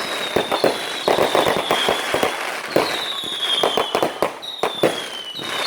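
Fireworks going off: a rapid string of sharp cracks and pops, with several high-pitched whistles that each fall slightly in pitch over about a second.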